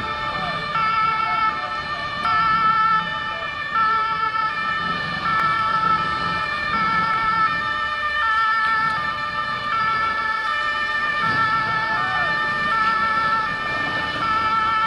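Two-tone siren sounding continuously, switching between a high and a low note about every three-quarters of a second, over a steady low rumble of noise.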